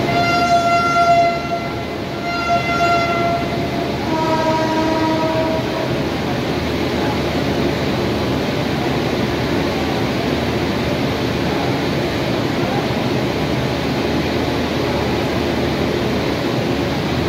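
Train horn sounding three blasts of a second or two each, the third lower in pitch, over the steady rumble of passenger coaches rolling past as the express train pulls out. The rolling noise then carries on alone.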